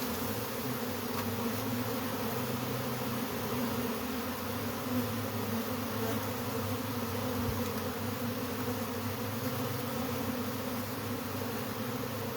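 Many honey bees buzzing in a dense, steady hum, a colony stirred up as it is broken out of its nest and dumped out.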